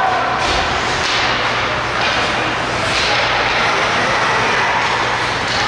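Steady din of an ice hockey rink during play: spectators' voices mixed with the noise of skates and sticks on the ice.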